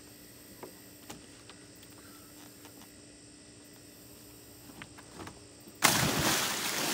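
A person jumping into an above-ground swimming pool: a sudden loud splash about six seconds in, followed by churning water. Before it, only a few faint taps over a steady low hum.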